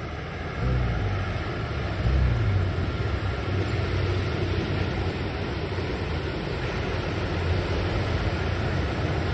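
Steady rumble of surf with wind, mostly low in pitch, swelling about half a second in and again about two seconds in.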